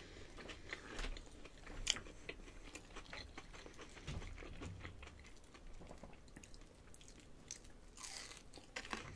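Chewing and biting a breaded, fried chicken strip: faint, irregular crunches, with a fresh crunchy bite just after eight seconds.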